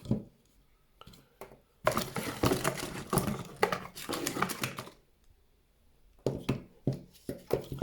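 Packaging rustling and crinkling with quick clicks as a PC case fan is taken out of its box, then a few short, sharp knocks of the fan being handled and set down near the end.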